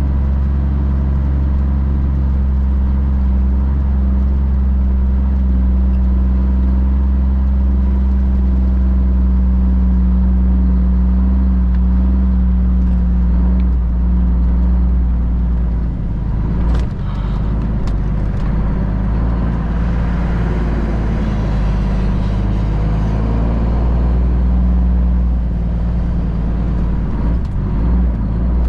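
Cummins ISM inline-six diesel of a Freightliner FLD semi, heard from inside the cab, running steadily at low speed as the truck creeps through soft mud. About halfway through, a rougher hiss and a few knocks join for several seconds.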